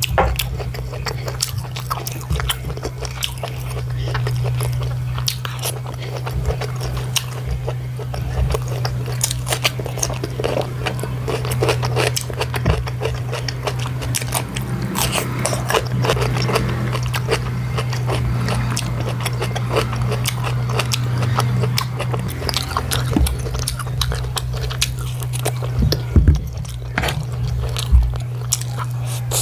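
A person chewing and biting through a meal of rice, tomato stew, chicken and cucumber, with many small crunchy bites and mouth clicks, over a steady low hum.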